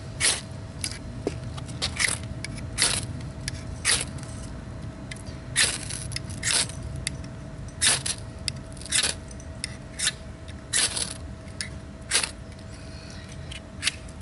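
Ferrocerium rod struck again and again with a scraper, over a dozen sharp hissing scrapes at irregular intervals of about a second, throwing sparks to light fire cord.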